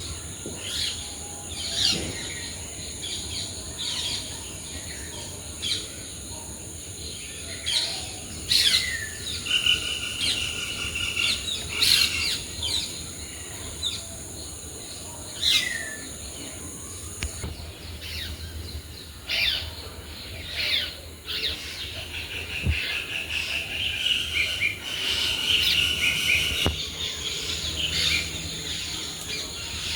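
Jungle birds calling together in a morning chorus: many short whistles that sweep downward, repeated over and over, with a fast high trill at times. Underneath runs a steady high-pitched insect drone that drops out a little past halfway and comes back near the end.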